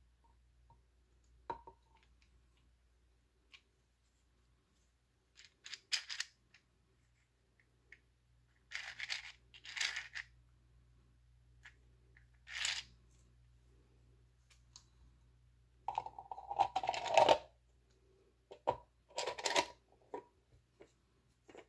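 Hard 3D-printed plastic parts of a vault-style puzzle box being handled and fitted together: scattered clicks and short scraping rubs, the loudest a longer grinding scrape about three-quarters through. A faint low hum runs underneath.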